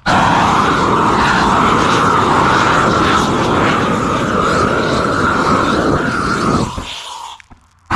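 Propane weed-burner torch burning steadily, with an even rushing flame noise. Near the end it fades away for about a second before coming back suddenly.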